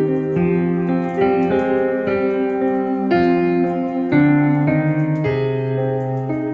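Background piano music: slow, sustained chords and notes, changing about every half second to a second.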